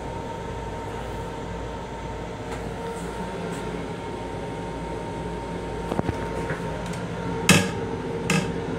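Steady hum of a moving M7 electric train car heard from inside its restroom, with faint steady tones in it. Near the end come two sharp knocks, the first the louder, as the plastic toilet seat is lifted and bumps.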